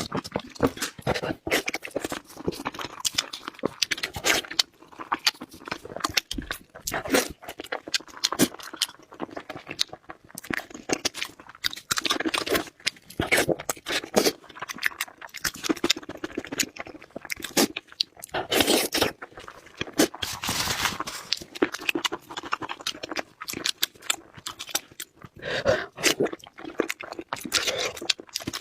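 Close-up crunching and chewing of crispy fried chops, with irregular crackly bites and mouth noises.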